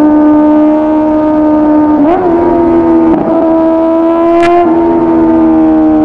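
Exhaust of a 2009 Kawasaki ZX-10R's inline-four engine, through a full aftermarket exhaust, running hard at high revs. The pitch holds nearly steady, with brief dips about two and three seconds in, then sags slowly toward the end as the throttle eases.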